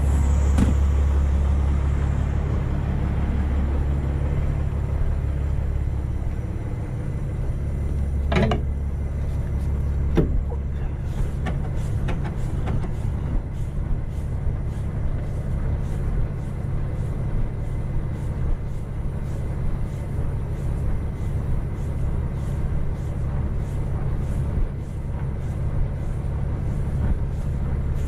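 Semi truck's diesel engine idling with a steady low rumble. Footsteps on icy ground tick through it, with two sharp knocks about eight and ten seconds in.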